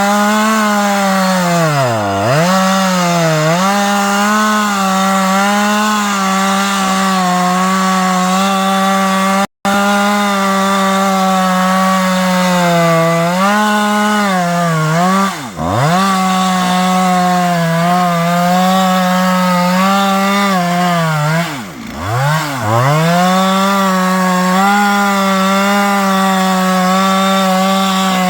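Stihl two-stroke chainsaw running at high revs, cutting a tree. Its steady high engine note sags sharply and climbs back four times, and the sound cuts out for an instant about a third of the way through.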